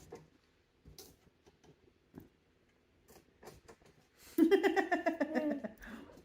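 A person laughing in a quick run of laughs that fall in pitch, lasting about a second and a half, about four seconds in. Before it there are only a few faint clicks and rustles.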